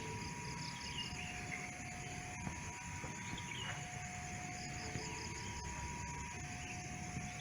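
Railway level-crossing warning alarm sounding: a steady electronic two-tone signal, a higher and a lower tone taking turns about every second and a quarter, which warns that a train is approaching. Faint chirping insects and birds sound under it.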